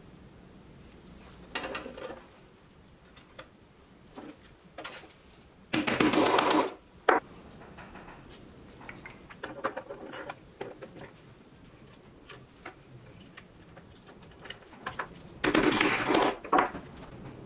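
Wheels and axle parts of a pressed-steel Tonka toy truck clicking and rattling as the wheels are fitted onto the axles. Two louder bursts of rapid clicking, about six seconds in and near the end, with scattered light clicks and knocks between them.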